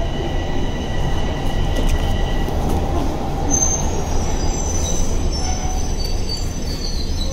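Toronto subway train running along the platform close by, a heavy rumble of wheels on rail. From about halfway a shrill metallic squeal rises over it.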